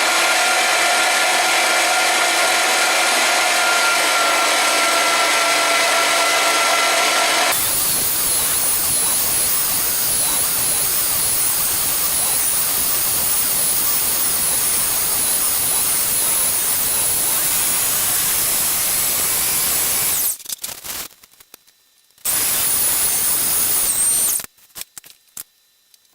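LEM No. 8 575-watt electric countertop meat grinder running, grinding pork through the fine plate. It starts at once with a steady motor whine, and about seven seconds in the sound turns to a rougher, harsher whirr. It is switched off about 20 seconds in, then runs again briefly for about two seconds.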